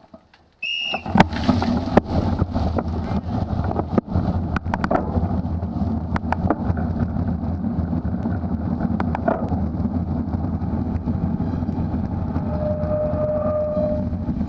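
Wind buffeting the microphone and the rattle of a Specialized Crux Elite X1 cyclocross bike riding over rough ground, with frequent clicks and knocks. It starts abruptly just under a second in, right after a short high beep.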